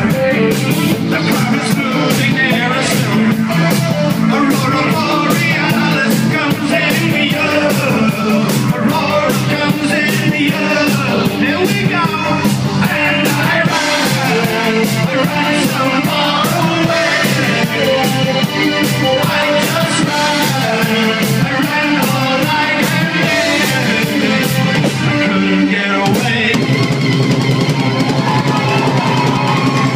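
Live new wave rock band playing an instrumental passage: drum kit keeping a steady beat under guitar. The cymbals and drum strokes drop out about 25 seconds in, while the guitar and bass carry on.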